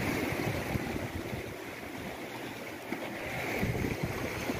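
Sea waves washing with a steady rush of water, with irregular wind gusts rumbling on the microphone.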